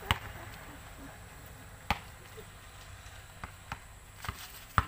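A basketball bouncing on a bare concrete court: a few sharp, separate thuds at uneven intervals, the loudest about two seconds in and just before the end.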